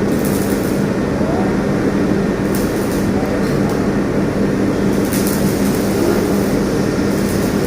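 Steady mechanical running noise, an even rumble with a constant hum, of the kind a vehicle makes while under way.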